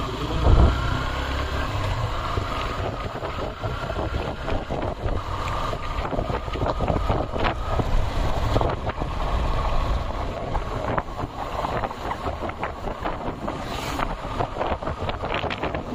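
Wind buffeting the microphone on a moving vehicle, over the steady rumble of its running.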